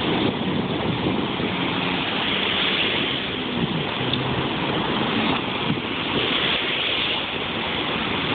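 Jet ski engine running, a low hum under a steady rush of water and wind noise.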